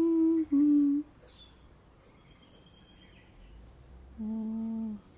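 A woman humming a slow tune: two held notes at the start, a pause, then one lower held note near the end.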